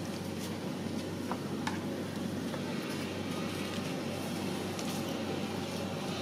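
A steady low hum and hiss, with a few faint, soft clicks from a kitchen knife slicing hard-boiled eggs against a wooden cutting board.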